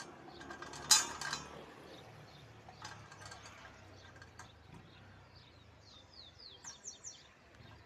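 A sharp knock with a short ring about a second in. Near the end a small bird gives a quick run of short, falling chirps.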